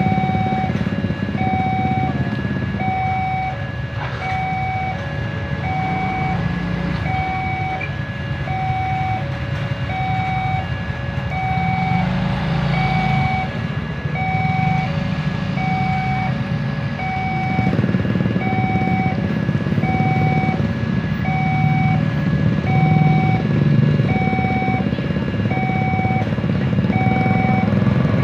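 Railway level-crossing warning alarm sounding a repeated electronic beep, roughly once every 0.8 seconds, while a train approaches. Underneath it, the engines of the queued motorcycles and vehicles idle, and the traffic noise swells near the end.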